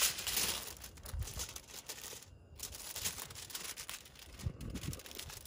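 Aluminium foil crinkling and rustling as a sheet is folded and pressed flat by hand, loudest in the first half second, with a few soft low thuds later.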